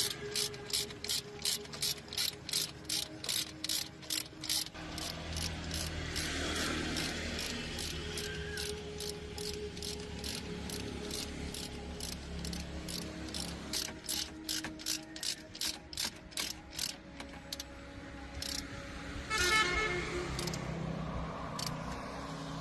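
Steady mechanical clicking, about three even clicks a second, with a low hum joining about five seconds in and a brief ringing tone near the end.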